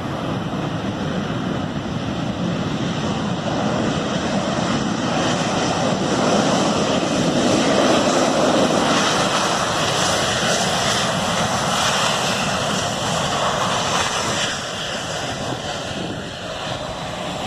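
Boeing 737 jet engines in reverse thrust during the landing rollout: a loud, continuous rushing roar that swells to its peak about halfway through, then slowly eases as the reversers come out of use.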